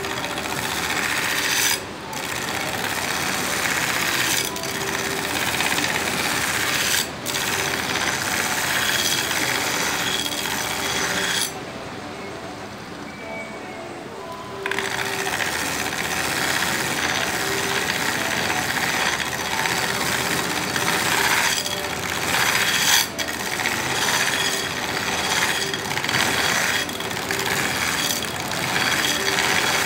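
Steel knife blade being ground on the running abrasive belt of a belt grinder: a steady grinding noise with a few brief breaks as the blade is lifted. About eleven seconds in the blade comes off the belt for about three seconds, leaving only the quieter running machine, then the grinding resumes.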